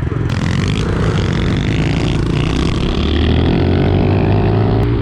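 Pit bike engine accelerating under load, its pitch rising steadily for about four seconds.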